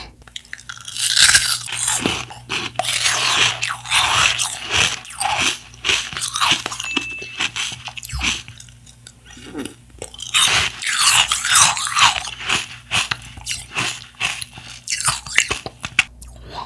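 Close-miked biting and crunching of an ice spoon frozen from Powerade, chewed in two bouts with a short lull about eight seconds in.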